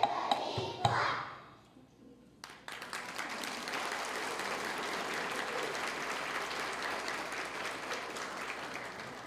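The end of children's singing in the first second or so, then after a short lull an audience applauding, fading away near the end.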